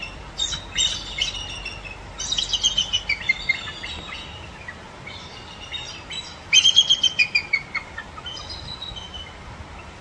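Bald eagle calling: bouts of quick, high, chirping notes that step down in pitch, three runs of them, the loudest about six and a half seconds in. This thin chittering is the bald eagle's real call, not the red-tailed hawk scream that films use for it.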